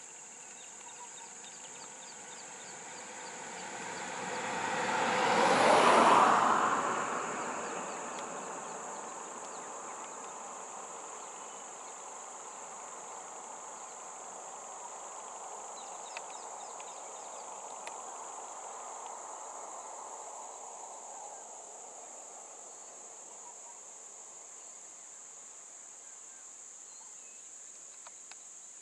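Insects droning steadily at a high pitch. About six seconds in, a passing vehicle swells up and fades away; it is the loudest sound.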